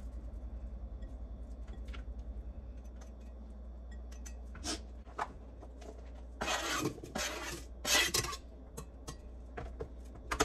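A chef's knife blade scraped across a plastic cutting board, pushing sliced onion scraps off it in a few short scraping strokes, the loudest about six to eight seconds in. Before that, only a low steady hum and a few light taps.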